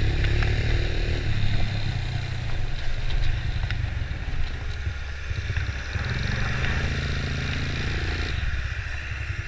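1996 Honda TRX90 quad's small single-cylinder four-stroke engine running while being ridden, its note rising and falling with the throttle.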